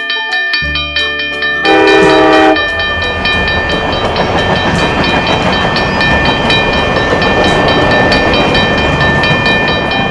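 Cartoon train sound effect: a train whistle blows once for about a second, about two seconds in, then the train keeps running with a steady rushing, rolling noise. Background music plays underneath.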